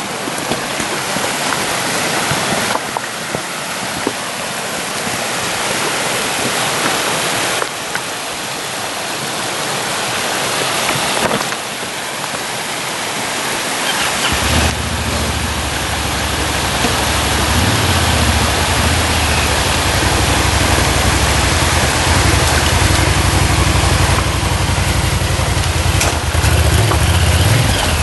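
Shallow stream water rushing over rocks. From about halfway, a motorcycle engine runs low and steady underneath it, and it is loudest near the end.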